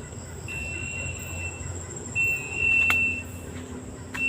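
A bird calling: a single high, steady whistled note held about a second, three times about two seconds apart. A few faint clicks sound between the calls.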